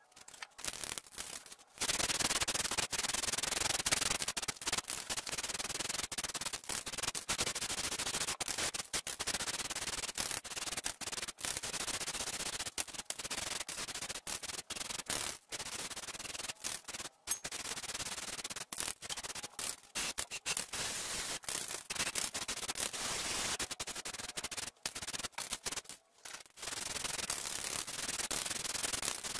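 Rust-Oleum Rust Reformer aerosol spray can hissing as it sprays paint onto a steel transmission crossmember. The hiss starts about two seconds in and is broken by many short pauses as the nozzle is let off and pressed again.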